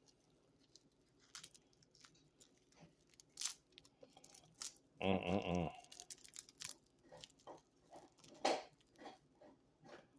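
Plastic cling wrap being pulled and torn off a watch, with irregular crinkles and snaps. A short grunt is heard about halfway through.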